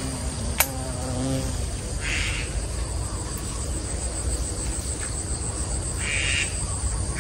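Insects chirring steadily in a high, evenly pulsing buzz. A sharp click comes under a second in, and a bird gives two short harsh calls about two and six seconds in.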